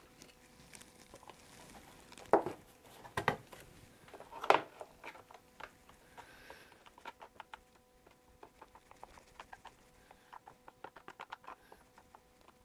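Wooden stir stick scraping and tapping in a plastic tray, mixing epoxy thickened with colloidal silica: rapid light ticks, several a second, through the second half. In the first few seconds there are a few louder knocks and clatters as the silica container is handled.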